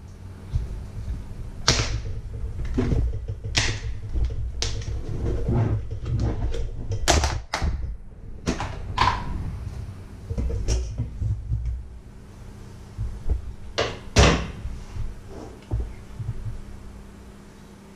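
Knocks and clatters of kitchenware being handled on a wooden worktop: a plastic tub's lid coming off, and a metal grater and steel bowl being moved about. The sharpest knocks fall about 2 s, 4 s, 7 s, 8.5 s and 14 s in, over a faint steady hum.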